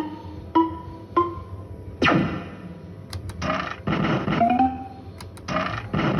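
BWB Volcano fruit machine's electronic sound effects during play. A run of short tones steps up in pitch, a sharp thunk comes about two seconds in, and later rising, swooping tones follow.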